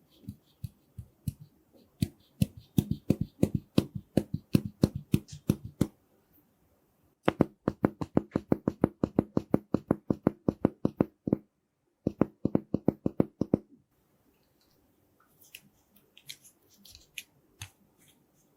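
Slime being pressed and squeezed by hand, making quick runs of sticky pops and clicks, several a second, in three bursts with short pauses between, then fainter crackling near the end.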